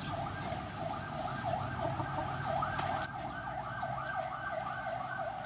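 A steady outdoor chorus of rapid, repeated chirps, several a second, with a single sharp knock about three seconds in.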